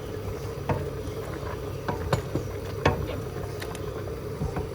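Pot of turkey meat and stockfish boiling on the stove: a steady rumble under a low hum, with scattered bubbles popping a few times.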